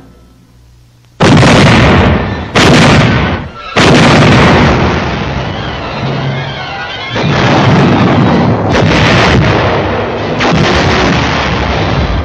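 Artillery shelling: after a moment of quiet, three heavy blasts come about a second apart, followed by a continuous rumble of gunfire with more blasts near the end.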